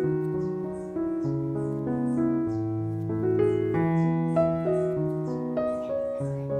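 Background piano music: a slow, gentle melody of held notes over a changing bass line.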